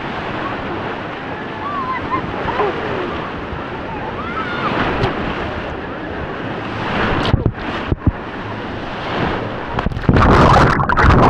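Wave pool water: a continuous rush of waves and sloshing, with faint voices of swimmers behind it. A few sharp knocks come about seven to eight seconds in, and a much louder rush of water starts about ten seconds in.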